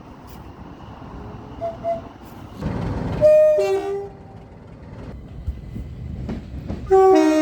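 A train horn sounds twice over the rumble of a train. About three seconds in there is a short two-note blast, high then low. Near the end comes a louder, longer blast.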